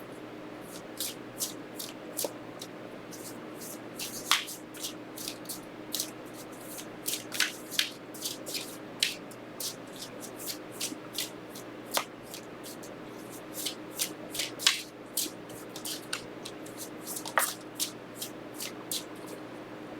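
Tarot cards being shuffled and handled: a run of irregular soft snaps and flicks, a few a second, over a faint steady hum.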